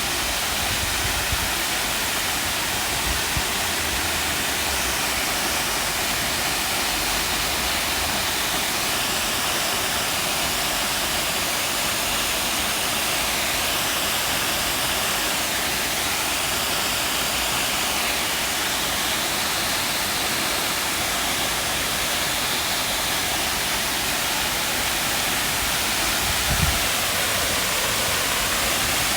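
Waterfall running high after days of rain, its water falling in a steady, even rush, with a low wind or handling bump now and then on the microphone.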